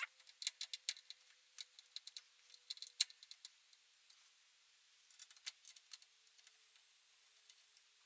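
Irregular light clicks and taps of small hard objects being handled: a busy run in the first three seconds, another short cluster about five seconds in, then quiet.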